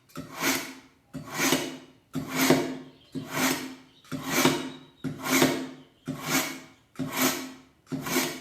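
Kitchen knife blade drawn again and again through the fine-stone slot of a manual knife sharpener, a rasping stroke about once a second, nine in all, each swelling and fading. This is the finishing pass that hones the edge after the coarse stone.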